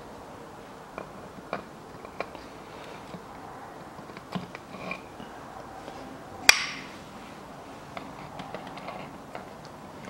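Light metal clicks and knocks as the gear selector housing of a Chevrolet Lanos five-speed manual gearbox is handled and offered up to the gearbox casing, with one loud sharp metallic clank about six and a half seconds in.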